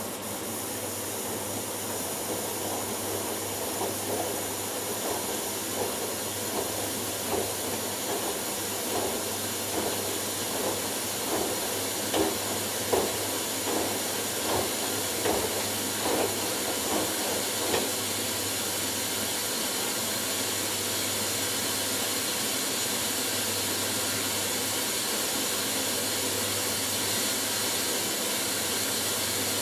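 Front-loading washing machines in the final rinse: a steady hiss of water running in, with soft regular sloshing thuds of the drum tumbling the wet load, about one and a half a second, that stop about halfway through.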